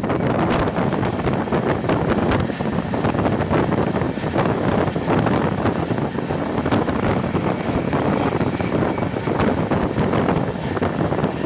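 Tamil Nadu Express passenger train running at speed: a loud, steady rushing noise full of small rapid clicks and rattles from the wheels and coach, with wind buffeting the microphone.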